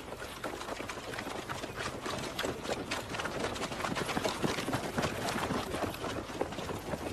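Many running feet pounding on a dirt track: a group of men running together, a dense, uneven patter of footfalls.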